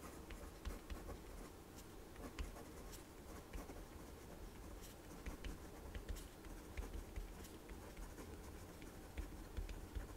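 Pen writing on paper: faint strokes and small scratchy ticks as handwritten words are formed.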